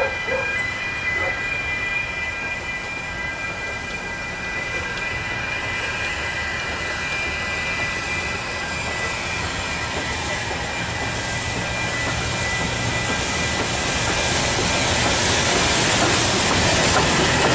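Narrow-gauge steam locomotive running slowly, hissing steam as it draws closer, growing louder over the last few seconds as it passes close by. A level crossing alarm sounds steady high tones through the first dozen seconds.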